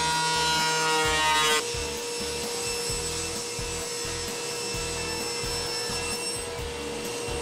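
A benchtop thickness planer running as the walnut and maple blank comes out of it, with a dense whine of many steady tones. About a second and a half in, this cuts abruptly to a quieter table saw running and crosscutting the wooden blank.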